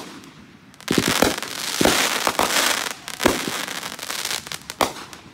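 Aerial fireworks going off: after a brief lull, about five sharp booms of bursting shells, with dense crackling for a couple of seconds after the first ones.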